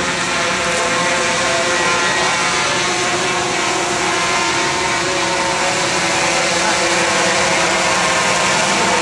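Large multirotor camera drone flying overhead: the steady whine of its electric motors and propellers, many even tones held over a rushing hiss.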